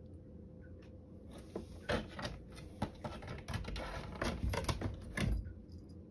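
A cat scrabbling in a hole in a shoji door's paper panel: a few seconds of paper rustling and crinkling with many sharp scraping clicks as it pushes and struggles. A heavier thump comes near the end as it drops to the tiled floor.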